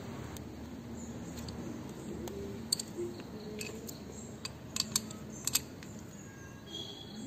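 A handful of light metallic clicks and taps from hand tools being handled, at irregular intervals and some in quick pairs, over a low steady hum.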